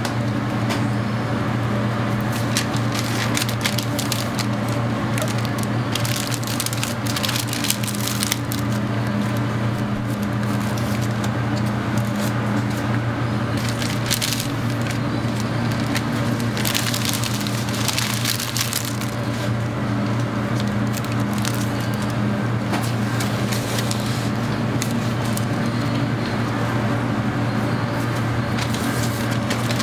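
Paper burger wrappers crinkling in several bursts as burgers are wrapped and packed into a cardboard takeout box, over a steady low machine hum.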